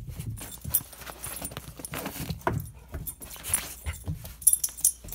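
A puppy moving about underfoot, its claws tapping and scuffling irregularly on a mat and wooden floor, with a light metallic jingle about three and a half seconds in and again near the end.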